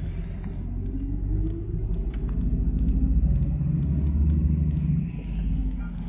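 City bus's engine and drivetrain rumbling in the passenger cabin while under way, with a whine that rises in pitch over the first couple of seconds as the bus accelerates, then a steadier, louder hum.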